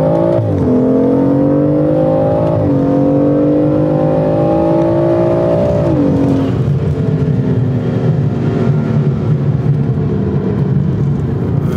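Turbocharged BMW 340i straight-six, fitted with an upgraded hybrid turbo, at full throttle inside the cabin: the engine note climbs steadily and drops sharply at three quick upshifts, about half a second, nearly three seconds and six seconds in. After the last shift it settles into a steadier drone as the pull eases off.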